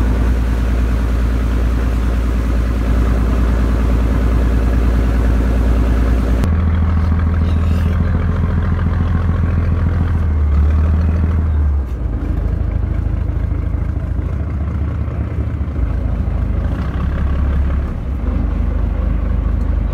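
Fishing boat's engine running steadily under way, a low, even drone. About six seconds in the sound changes abruptly and becomes duller.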